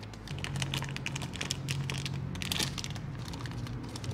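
Small clear plastic bag crinkling and rustling as it is handled and crumpled, in quick irregular crackles, over a steady low hum.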